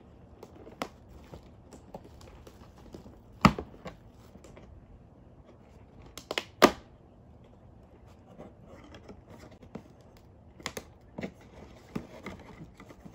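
Cardboard advent calendar door being pushed and torn open by fingers: scattered sharp snaps and taps over soft rustling and crinkling. The loudest snaps come about three and a half seconds in and again twice in quick succession about six and a half seconds in.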